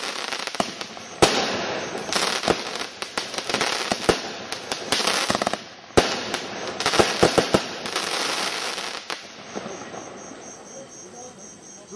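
Jonathans Fireworks 'Cheery Cherries' firework going off: a rapid, irregular run of sharp bangs over a continuous crackle. It thins out about nine seconds in and fades away toward the end.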